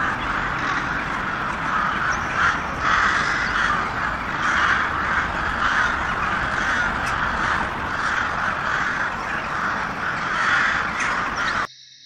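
A flock of crows cawing, many calls overlapping into a continuous din. It cuts off suddenly near the end.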